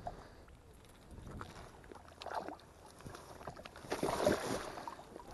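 Water sloshing and splashing around a wooden landing net holding a trout at the lake's edge, in a few irregular swishes, with a louder burst of splashing and rustling about four seconds in.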